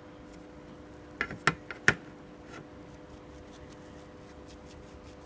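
Three quick sharp taps close together a little over a second in, the last the loudest, then faint small clicks: a metal spoon knocking against a ceramic bowl of paint while small sponge pieces are handled.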